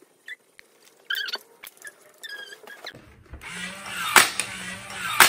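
A few light squeaks, then about three seconds in a small battery-powered DC motor switches on and runs with a steady hum. The kit's spring-loaded table tennis ball launcher snaps loudly about once a second as the turning wooden cam releases it.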